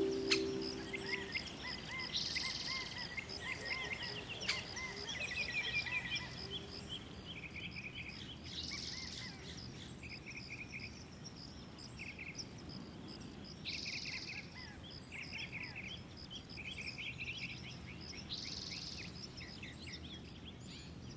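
Birdsong ambience: several small birds chirping and twittering in short repeated phrases, over a steady high insect trill. A held music note fades out about a second in.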